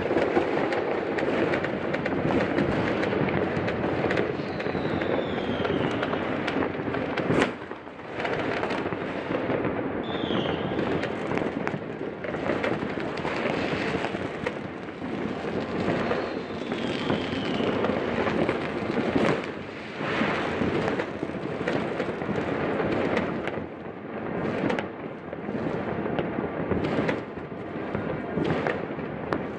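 Many fireworks going off at once across a town: a dense, continuous mix of bangs and crackling, with a few louder single bangs and three short falling whistles.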